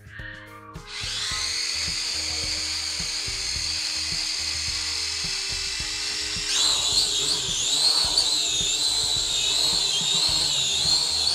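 Small electric motors of a cheap Mavic-style toy quadcopter spinning its four propellers with a steady high whine. About six and a half seconds in they speed up for takeoff, and the whine gets louder and wavers as the drone hovers.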